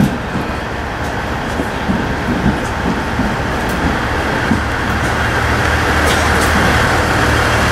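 KiHa 110-series diesel railcar running into the station platform, its diesel engine a low steady hum that grows louder and settles about halfway through as the railcar draws alongside, over the hiss of rolling wheels.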